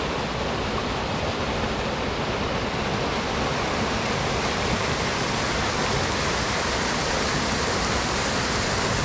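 Steady rush of a fast mountain stream, an even, unbroken sound of flowing water.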